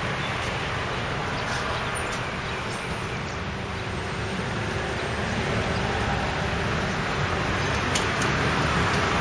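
Steady noise of road traffic, with a few faint clicks.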